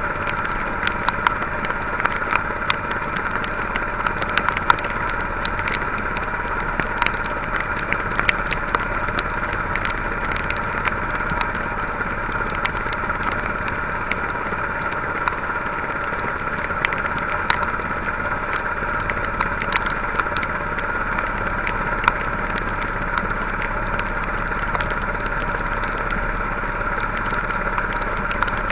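Small boat's motor running steadily, with scattered sharp ticks of heavy rain hitting close by.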